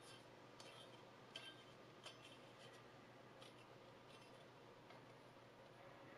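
Near silence: room tone with a low hum and a few faint, short clicks in the first few seconds, from the chef's knife being handled.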